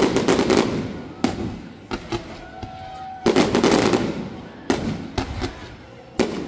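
Aerial fireworks shells bursting in several volleys of rapid bangs and crackles, with quieter gaps between the volleys.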